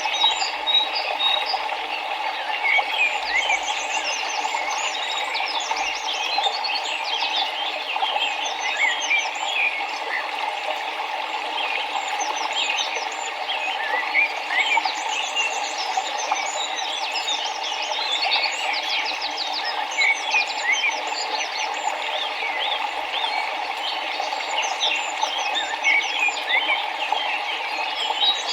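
A dense chorus of birds chirping and trilling, with many short, quick notes and rapid repeated trills, over a steady rushing of river water.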